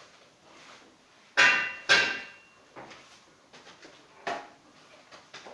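Two sharp knocks of a hard object, about half a second apart, each with a brief ringing, followed by a lighter knock near the end and faint clatter.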